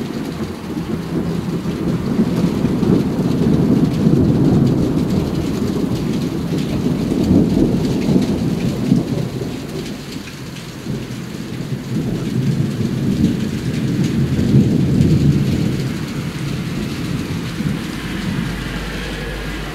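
Rolling thunder from a thunderstorm: a long, low rumble that swells and fades three times.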